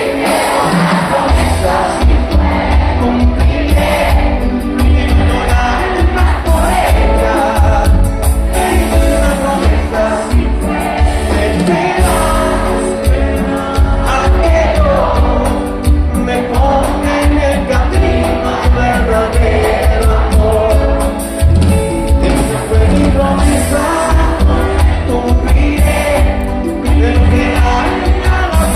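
A song with singing over a full band and a steady, pulsing bass beat.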